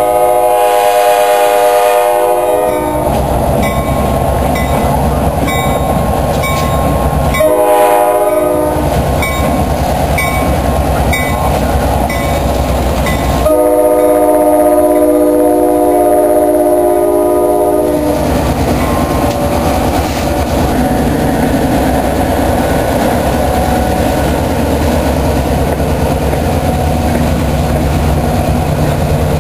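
Diesel locomotive air horn sounding a multi-note chord in three blasts: long, short, then long. These are crossing signals as a freight train led by four-axle diesel road switchers passes close by. Between and after the blasts the locomotives' diesel engines run steadily and the wheels click over the rail joints.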